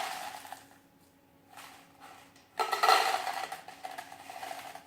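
Popcorn popping as a sound effect. There is a burst of popping at the start that fades out, then a longer, denser stretch of popping and crackling from a little past halfway to near the end.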